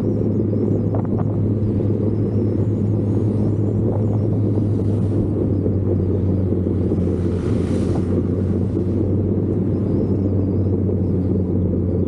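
A steady low engine drone, holding one pitch.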